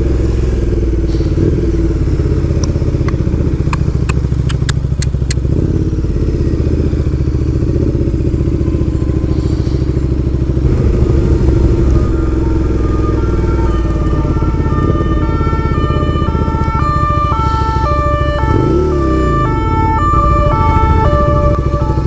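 Motorcycle engine running at low revs in slow city traffic, with a quick run of sharp clicks a few seconds in and a brief rev near the end. About halfway through, a simple tune of clear, stepping notes starts over the engine.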